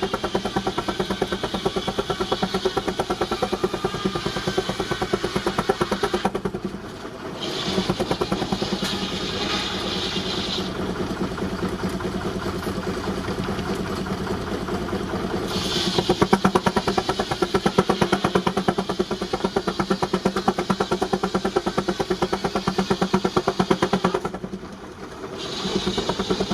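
19-65 Uniflow Baker steam traction engine running under belt load, driving a sawmill, with a fast, even chuffing of exhaust beats over a steady hum. The sound drops away briefly twice.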